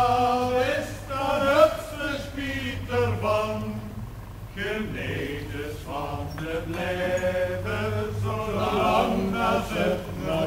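Voices singing in a chant-like way over a steady low hum.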